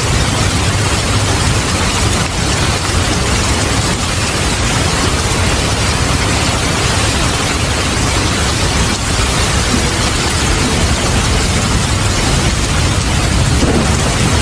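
Heavy rain falling steadily, with a continuous low rumble of thunder underneath.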